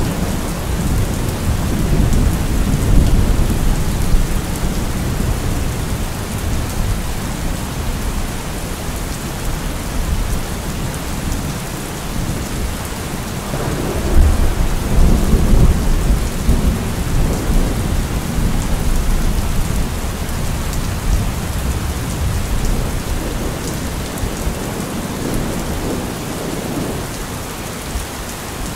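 Steady rain with rolling thunder; low rumbles swell near the start and again about halfway through.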